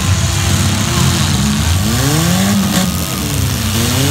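Several demolition derby car engines revving, their pitch climbing and falling back again and again over a steady din.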